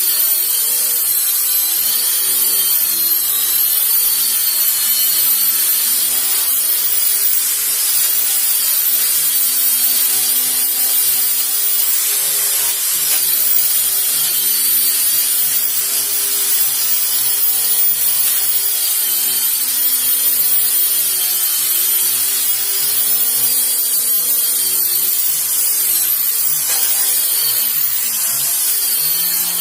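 Electric power sander running against wood: a steady grinding hiss with a motor whine that wavers in pitch as it is pressed and moved over the surface.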